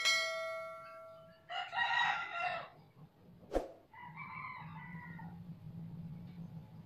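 A rooster crowing twice, about a second and a half in and again about four seconds in, with a sharp click between the calls. At the start a bell-like chime rings and fades out over about a second and a half, and a faint steady low hum runs under the second crow.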